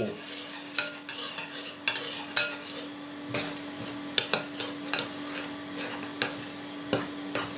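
A spoon stirring and scraping in a mixing bowl as flour is poured in and mixed into yeast water, with scattered light clicks and taps of the spoon against the bowl.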